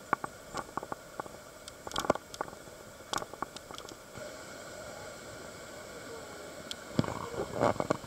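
Irregular clicks and knocks of footsteps on rocks and scuba gear clinking as divers carrying tanks climb down a rocky trail, over a steady rushing of river water. The clatter is busiest in the first few seconds and again near the end, in a louder cluster.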